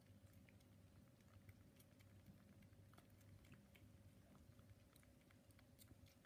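Near silence with faint, scattered smacking clicks of newborn Bengal kittens suckling at their mothers, over a faint low hum.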